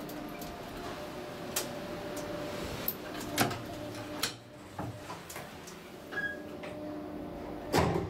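Lift car running quietly with a steady low hum, with scattered clicks and knocks from the control panel buttons being pressed and a brief beep about six seconds in. The sliding car doors close with a thud near the end.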